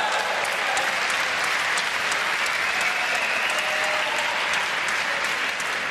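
Spectator crowd applauding at a badminton match after a point is won: steady, dense clapping throughout.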